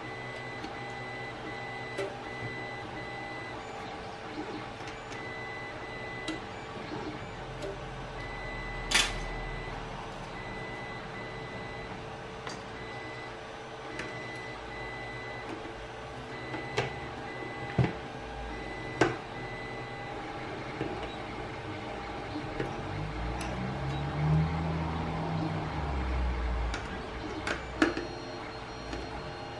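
Scattered light clicks and taps of metal parts and a small screwdriver as a sheet-metal cover is fitted and screwed onto a chartplotter's chassis, the sharpest click about nine seconds in, with duller handling bumps near the end. Under it runs a steady background hum.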